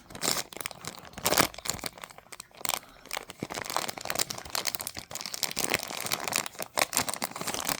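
Packaging crinkling and rustling in irregular crackles as a small plastic toy figure is worked out of it.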